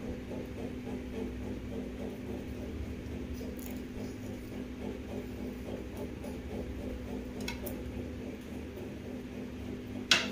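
Small kitchen knife trimming the spiny edges off an aloe vera leaf, a few faint cutting clicks, with a sharper click near the end. A steady low hum runs underneath.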